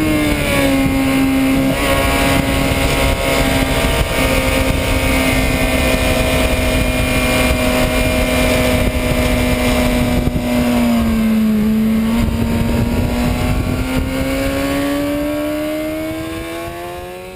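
2006 Suzuki GSX-R 750's inline-four engine under way at speed at fairly steady revs, over a steady rush of wind, heard from a camera mounted on the gas tank. About two-thirds of the way in the revs dip briefly, then climb steadily as the bike accelerates, and the sound fades out near the end.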